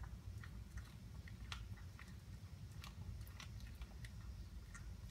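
A pet chewing and crunching through a freshly caught rabbit: irregular crunches and clicks of teeth on bone and flesh, a few a second, over a low steady background rumble.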